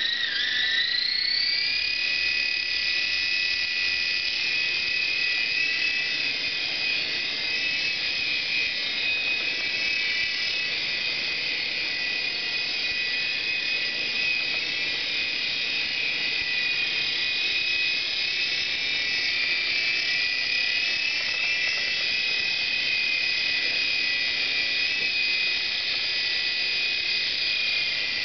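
Air Hogs Sharpshooter toy RC helicopter's small electric motors whining at high speed, rising in pitch over the first two seconds as they spin up, then holding a steady high whine.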